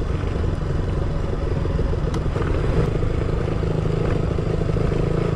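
KTM 200 Duke's single-cylinder engine running at a steady speed under way. A couple of sharp ticks come a little over two seconds in.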